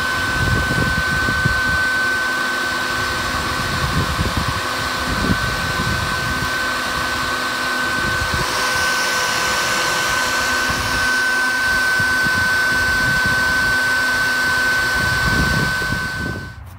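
A Colorado BeeVac bee vacuum running steadily with a high motor whine, under irregular low rumbling. It cuts off abruptly near the end.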